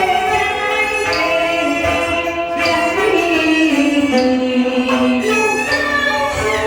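Teochew opera music from a live traditional Chinese ensemble. A melody slides between held notes over steady percussion strokes.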